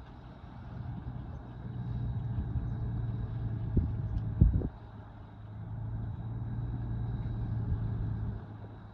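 Heavy earthmoving machine's diesel engine running, its level rising and falling as it works, with a few heavy low thumps about four seconds in.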